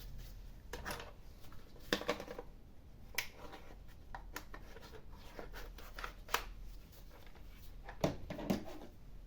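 Hands working on a laptop's plastic case: scattered clicks and short scrapes at irregular intervals, with a pair of louder clicks near the end.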